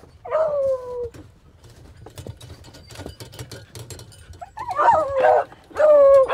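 Beagles howling and yelping: one long falling howl at the start, then a burst of overlapping howls and yips near the end. Scattered clicks and knocks sound in between.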